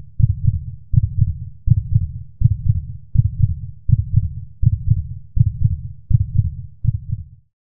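Heartbeat sound effect: a steady low double thump, lub-dub, about ten beats at roughly 80 a minute, cutting off suddenly near the end.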